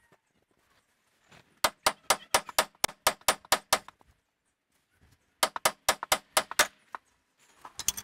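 Hammer tapping on the steering knuckle of a 2002 Chrysler PT Cruiser to knock the worn outer tie rod end out of the hub: two quick runs of sharp metallic taps, about five a second, with a pause between.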